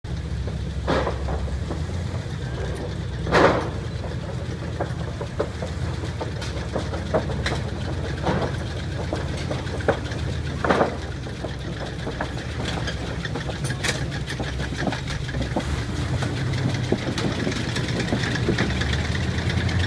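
Sherman tank's engine running steadily at low revs as the tank crawls across a Bailey bridge, with a few sharp knocks over the steady rumble, the loudest about three and a half seconds in.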